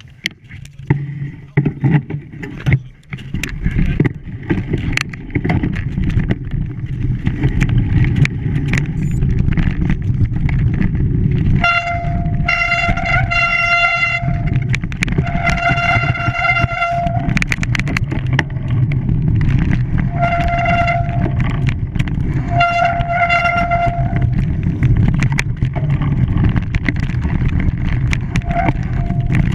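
A steady low rumble, like a running vehicle, with a horn sounding four times in the middle, each toot lasting one to two seconds.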